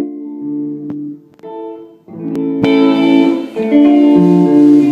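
Electric guitar played through an amplifier: a few held notes, then fuller strummed chords ringing from about two seconds in.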